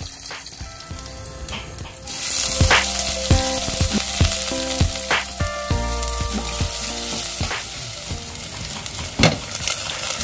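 Mustard seeds and urad dal sizzling in hot oil in a stainless steel pot, then about two seconds in a much louder sizzle as sliced onion goes into the oil. The onion keeps frying and is stirred, with scattered knocks against the pot.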